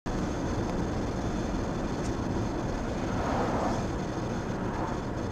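Steady road and engine noise inside a moving car's cabin, tyres running on a wet road. There is a slight swell about halfway through.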